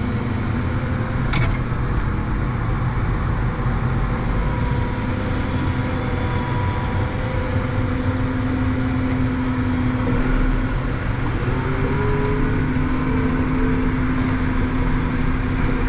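Diesel engines of heavy farm machinery running steadily during grass silage chopping, a constant engine drone with a steady hum.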